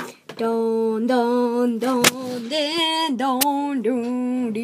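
A child's voice singing a wordless tune in long held notes that step up and down, with a few sharp clicks.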